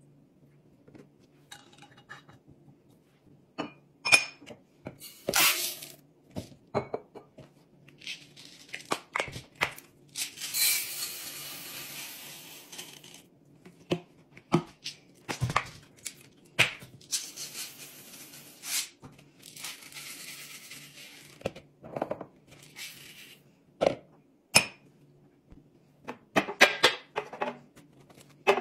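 Laundry containers being refilled and handled: a run of sharp clicks, taps and glassy clinks from caps, lids and glass jars. There are two longer spells of a rushing pour, about eight seconds in and again near twenty seconds, which fit scent-booster beads being poured into a glass jar.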